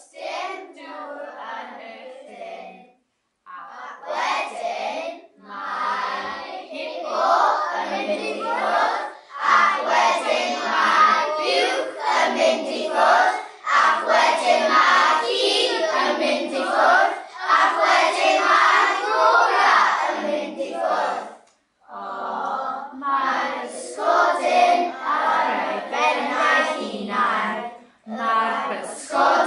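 A class of young children voicing words together in unison, in phrases of a few seconds with short breaks between them.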